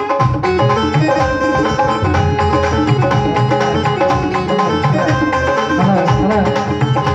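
Instrumental music: a keyboard melody over tabla-style percussion, with a steady rhythm.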